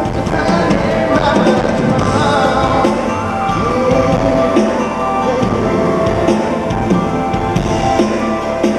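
Live pop music from a concert sound system: a male singer on a headset microphone singing over a backing track with drums, recorded from among the audience.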